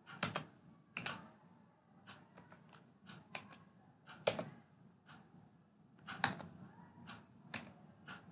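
Computer keyboard keystrokes: a dozen or so irregular, separate taps, the loudest about four seconds in.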